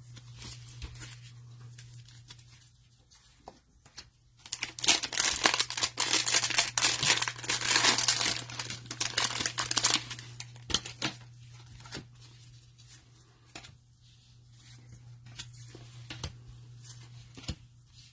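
Cellophane wrapper of a trading-card cello pack being torn open and crinkled, loudest for several seconds in the middle. Quieter rustling and small clicks of the cards being handled come before and after it.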